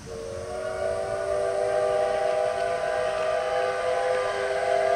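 Steam locomotive's whistle blowing one long, steady blast, a chord of several tones that starts suddenly.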